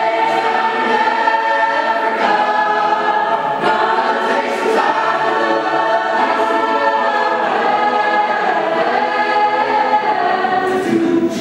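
Mixed choir of men's and women's voices singing together in sustained, shifting chords.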